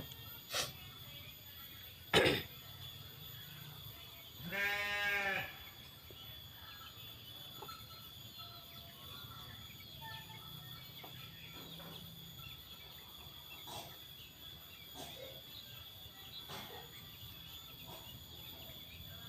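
A single drawn-out animal call, about a second long, comes a little over four seconds in. It is preceded by two sharp knocks, the second of them the loudest sound. Otherwise only faint steady background.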